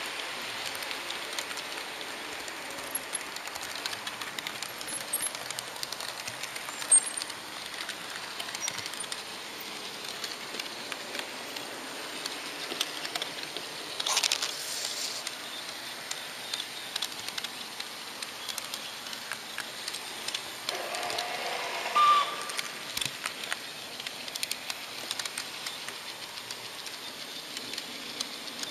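HO-scale model train running along its track, heard from a camera riding on it: a steady hiss with scattered clicks. One sharp click comes about a quarter of the way through, and a short tone about three-quarters of the way through.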